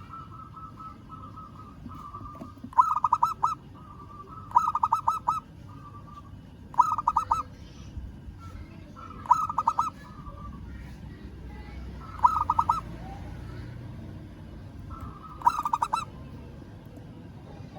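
Zebra dove cooing: a short phrase of rapid staccato coo notes, repeated six times, every two to three seconds, with softer held notes between phrases. A low steady rumble runs underneath.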